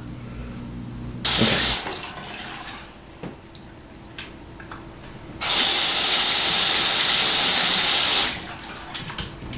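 Bathroom sink tap running twice as a child washes his hands: a short spurt of water about a second in, then a steady stream for about three seconds past the middle as he rinses his hands under it.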